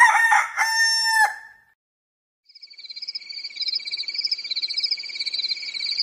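A rooster crowing once, its long drawn-out final note fading about a second and a half in. From about two and a half seconds in comes a steady, high, rapid trilling.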